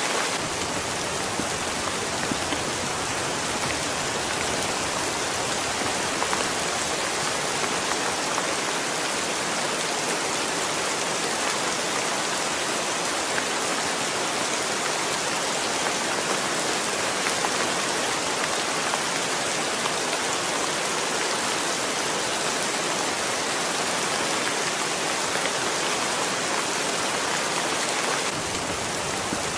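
Heavy rain falling steadily and splashing on wet stone steps.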